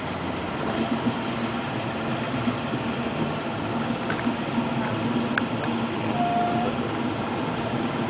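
A steady engine hum under a rushing noise, with a brief higher tone about six seconds in.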